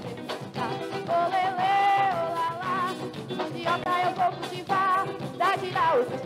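Carimbó dance music with steady percussion and a melody line, some notes held with a wavering vibrato.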